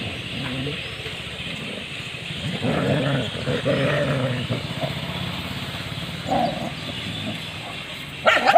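Dogs growling at each other in a fight, in low rough stretches, followed by a sudden loud cry near the end.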